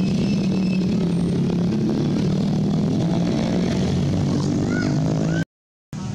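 A motor engine running steadily, its pitch dipping a little and rising again. A few short, high, rising squeaks come about four to five seconds in. The sound cuts out abruptly for a moment near the end and comes back a little quieter.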